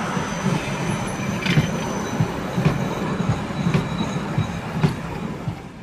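A Vienna tram passing close by: its wheels rumble and clatter on the rails, with a regular thump about twice a second, a few sharp clicks and a faint high squeal. The sound dies away near the end.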